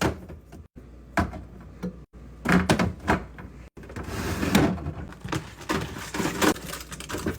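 Items being set down and pushed into a fridge: a run of light knocks and clunks against the shelves and door, with a second or so of rustling packaging in the middle.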